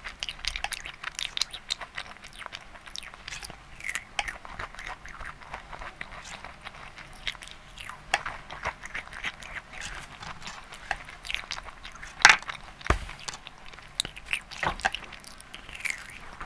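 Close-miked chewing and biting of imarti, a syrup-soaked fried sweet: a dense run of small wet clicks and crackles. There is a sharper crack about twelve seconds in and a fresh bite near the end.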